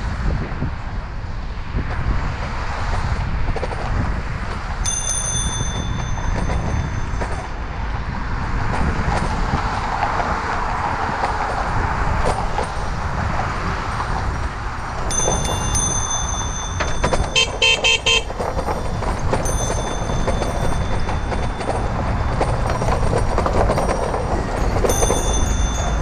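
A Loud Bike car-style horn mounted on a bicycle sounds a few quick short blasts about two-thirds of the way through. Steady wind and rolling noise run underneath, with a faint high-pitched whine that comes and goes.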